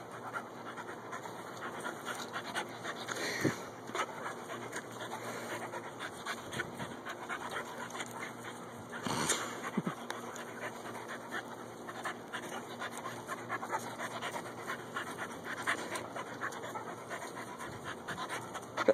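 A puppy panting, over scattered small ticks and rustles, with a couple of louder knocks.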